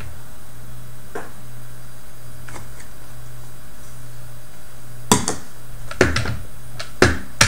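Handling knocks and clicks on a wooden desk: a few faint clicks early, then several sharper knocks about five to seven seconds in, as a plastic wipes canister is set down and the plastic Scribbler 2 robot is handled. A steady low hum runs underneath.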